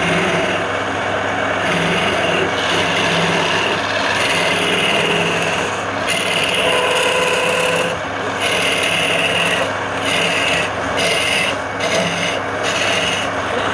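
Wood lathe running, its motor humming steadily while the spinning wood rasps against a turning tool. The rasping breaks off briefly several times in the second half.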